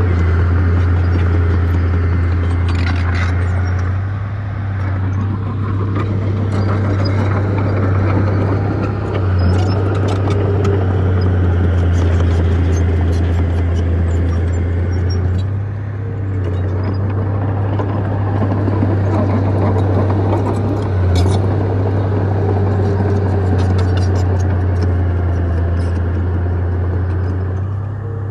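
Bulldozer's diesel engine running steadily with a low drone that dips briefly about every five to six seconds, with faint clicking above it.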